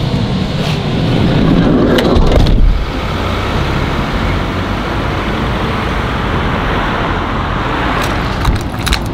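Road traffic: cars and vans driving past on a town street, a steady tyre and engine noise that swells as vehicles pass. There are a few sharp clicks in the first three seconds.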